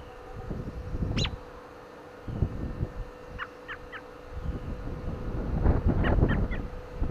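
Wind gusting over the microphone in rising and falling buffets, with a few short bird chirps over it: one quick sweep about a second in and two small groups of three or four notes later on.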